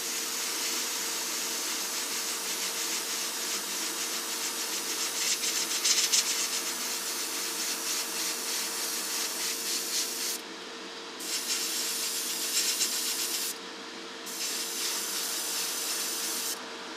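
Airbrush spraying a wet coat of thick white primer: a steady hiss of air and paint runs for about ten seconds, stops, then comes back twice in shorter bursts of two to three seconds. Under it is the steady hum of the spray booth's extractor fan.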